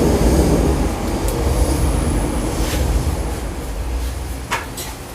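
Blacksmith's forge running with a steady low rumble and hiss, which fades away about four and a half seconds in, followed by a sharp metal clink.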